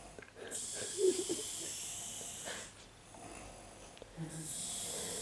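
A woman snoring in her sleep with an unusual hissing sound: two long hissing breaths, the second starting with a brief low buzz.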